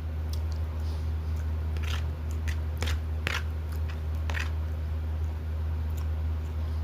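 A person chewing a mouthful of breakfast close to the microphone, with several short wet clicks and smacks of the mouth between about two and four and a half seconds in, over a steady low hum.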